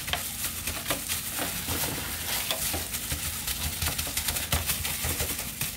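Clear plastic food-prep gloves crinkling and rustling, with raw chicken skin squelching, as hands massage dry seasoning into a butterflied whole chicken in a disposable aluminum foil pan. It is an irregular run of small crackles and soft slaps.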